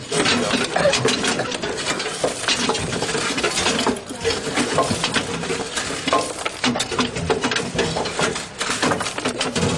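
Ash and clinker being raked out of a steam locomotive's cast-iron ash pan: a metal rake scraping, with ash and lumps of clinker clattering down onto the pile below in a steady run of rattles and clicks.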